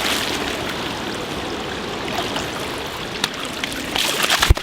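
Steady rush of flowing water, with a louder burst of clicks about four seconds in and a sharp thump just before the end.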